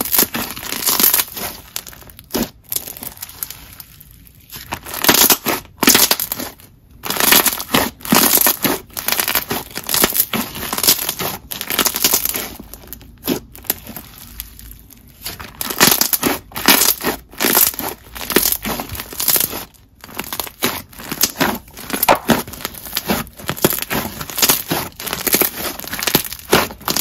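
Thick clear slime mixed with foam beads being squished, pressed and stretched by hand, giving an irregular run of wet bubble pops and slight crunches from the beads, with two short lulls.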